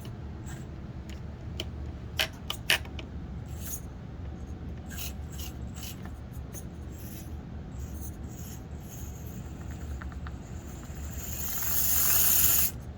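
Axial SCX24 micro RC crawler with a brushless motor, picking its way over rocks: its tyres and drivetrain rub and scrape, with scattered sharp clicks, two louder ones a couple of seconds in. Near the end it gets louder in a rough rush of noise.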